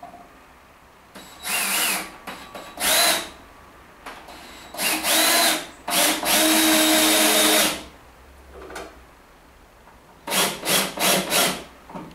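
Cordless drill with a crosshead bit driving long wood screws into timber, in several runs. There are two short runs, then a longer run of nearly two seconds in the middle, and a quick series of short pulses near the end as a screw is seated.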